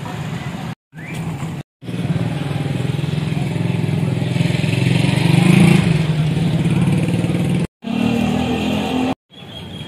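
Motorcycle engines running close by, growing loudest about halfway through. The sound cuts out abruptly for a moment several times.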